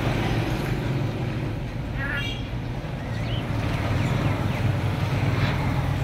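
A cockatiel gives a short, pitched chirp about two seconds in, and a fainter rising chirp a second later. Both sit over a steady low hum.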